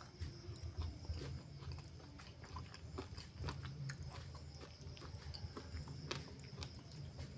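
Close-miked chewing of chicken liver and gizzard: irregular mouth and teeth clicks, several a second.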